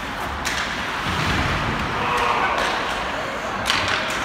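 Ice hockey rink during play: a steady wash of skates on ice and crowd noise, with a couple of sharp knocks of stick or puck near the end.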